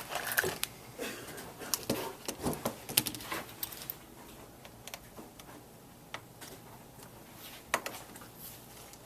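Small sharp clicks and scrapes of hand tools working inside an opened iPhone 5 as its battery is removed, a quick run of them over the first few seconds, then only scattered light ticks and one sharp click near the end.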